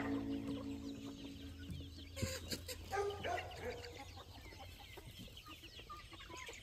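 Chickens clucking as a flock forages, with a few louder calls between about two and three and a half seconds in. Background music fades out over the first two seconds.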